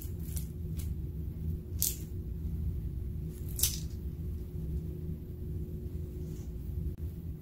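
Clear plastic piping bag crinkling as it is squeezed and emptied of glitter and beads, a few sharp crackles about two and three and a half seconds in, over a steady low hum.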